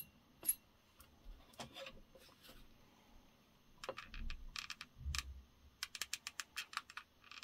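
Faint clicks and taps of small parts being handled on a metal flywheel hub, with a couple of dull bumps, then a quick run of clicks in the last second or two as a mini hot glue gun is worked.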